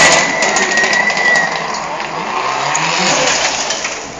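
Race car driving past and fading away, with a thin high whine during the first second and a half.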